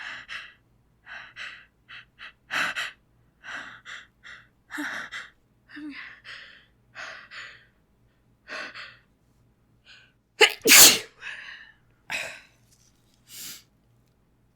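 A woman's short, gasping breaths building up to a sneeze, then one loud sneeze about ten seconds in, followed by a few softer breaths.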